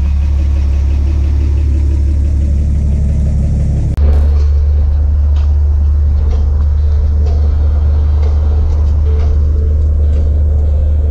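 1951 GMC 100 pickup's engine running, a steady low rumble. About four seconds in the sound changes abruptly to the truck driving, heard from inside the cab, with engine and road noise.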